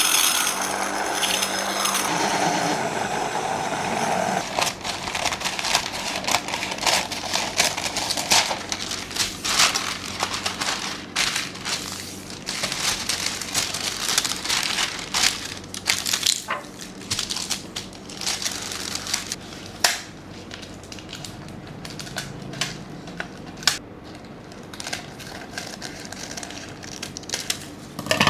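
Food frying in a hot pan: a loud sizzle that breaks out suddenly and eases over the first few seconds, settling into steady crackling and popping.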